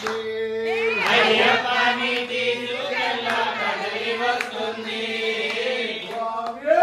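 A group of men chanting a devotional song together in unison. It opens on one long held note, and the full group of voices joins about a second in.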